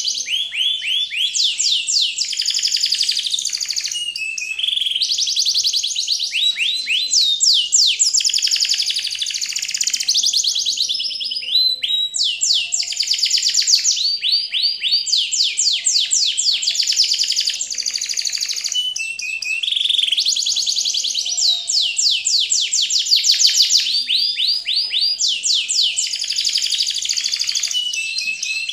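Background track of high, rapid trilling chirps like birdsong, in phrases of a few seconds that repeat over and over.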